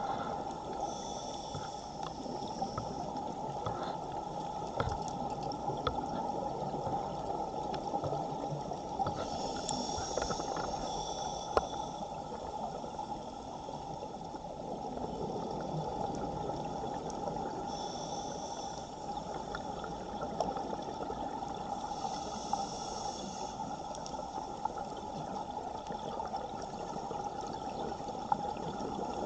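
Underwater rush of a strong current over a camera housing, with a diver's scuba regulator breathing: a hiss that swells and fades four times.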